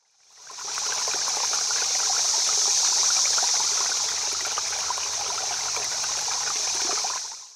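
Running water of a stream: a steady rushing hiss with small splashes and bubbling through it. It fades in over the first second and fades out near the end.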